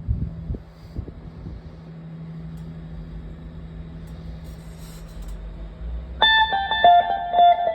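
Stratocaster electric guitar through an Echorec-style PT2399 delay pedal and a Twin Reverb–type amp: a steady low hum with a few knocks at the start, then about six seconds in a quick run of picked notes.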